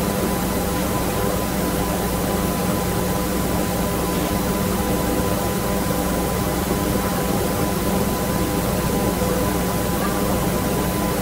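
Steady background hum and hiss made of several unchanging tones over an even noise, with no speech or music.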